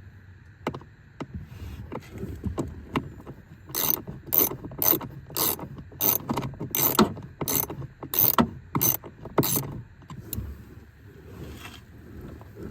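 Hand ratchet clicking in a steady run of about two strokes a second for several seconds, driving a small 7/32-inch socket to back out a blower motor mounting bolt. A few scattered clicks come before, and the run stops near the end, leaving light handling noise.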